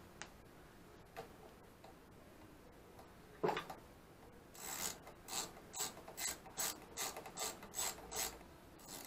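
Socket ratchet wrench clicking in a run of about ten short strokes, two or three a second, over the second half, as a bolt on a small engine's air-filter adapter is turned. A single sharp clack comes about three and a half seconds in.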